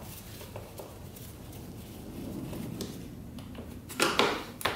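A screwdriver working the screws of a plastic ATV air box lid: low handling and turning noise, then two short, louder scrapes of tool on plastic about four seconds in.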